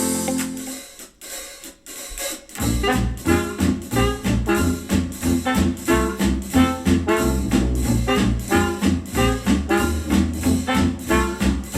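Music played through a JBL Charge 4 Bluetooth speaker: the previous track fades out, and after a short gap a jazz tune with brass and a drum kit starts about two and a half seconds in, with a steady beat.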